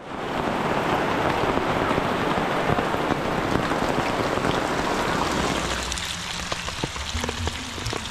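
Steady rain falling on a plastic tarp canopy and wet ground. About six seconds in, the dense hiss thins out into lighter rain with scattered single drops.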